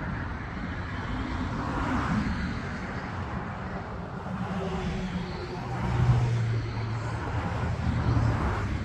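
Road traffic: a steady low rumble of passing cars, with one vehicle's engine hum growing to its loudest about six seconds in.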